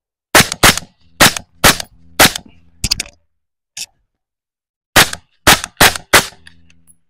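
Radical Firearms integrally suppressed 5.56 AR-15, with a 10.5-inch barrel and the suppressor built in, fired in quick strings. There are five fast shots, a pause of about two and a half seconds, then four more.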